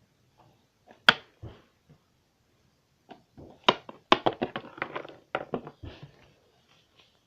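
A sharp click, then a quick run of clicks and light rattles about three and a half to six seconds in: small plastic toy figurines and play pieces being handled and set down.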